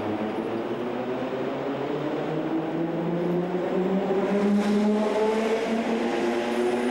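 Hamburg S-Bahn electric multiple unit pulling out of the station, its traction motors giving a whine of several tones that climbs in pitch as the train gathers speed.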